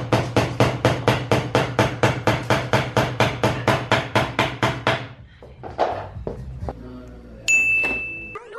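Background music: a steady beat of about four hits a second over a low bass. It thins out after about five seconds, and a held high tone comes in near the end.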